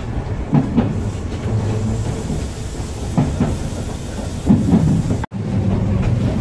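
Running noise inside a Kintetsu Minami-Osaka Line commuter train: a steady rumble of wheels on rail, with a few double clacks as the bogies pass over rail joints. The sound cuts out for an instant about five seconds in.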